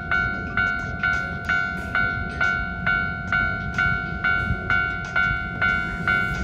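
Railway level-crossing warning bell ringing in a steady repeating rhythm, about two strikes a second, each strike a bright ringing tone. A low rumble runs underneath.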